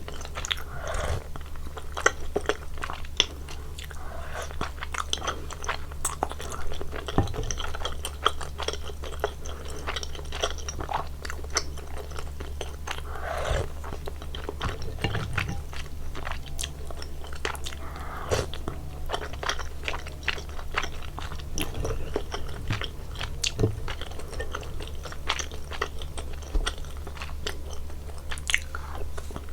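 Close-miked chewing and biting of spicy soup tteokbokki (chewy Korean rice cakes) with cheese: many small wet clicks in an uneven run, over a steady low hum.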